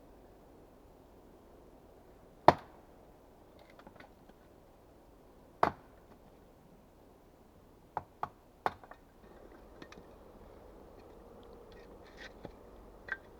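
Axe chopping into wood: two hard single strikes about three seconds apart, the second the loudest, then three lighter knocks in quick succession about eight seconds in, and a few faint clicks near the end.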